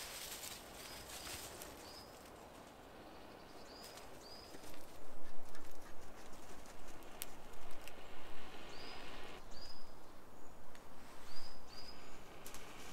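Carbon-steel striker scraped hard and repeatedly down a flint, a quick irregular run of sharp rasping strikes starting about five seconds in, throwing sparks onto char cloth. A small bird gives short rising chirps, repeated every second or two.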